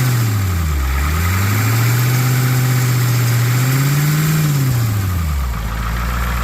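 A 1991 Ford F250's 7.3 L IDI V8 diesel being revved: a short blip at the start, then the revs rise and are held for a couple of seconds before falling back to a steady idle about five and a half seconds in.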